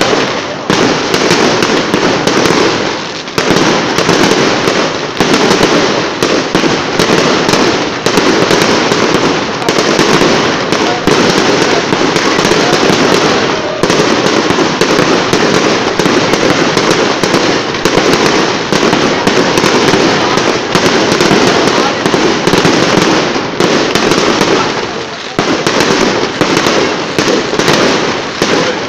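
Aerial fireworks display: a loud, dense barrage of shell bursts and crackling, bang upon bang with hardly a gap, easing only briefly twice.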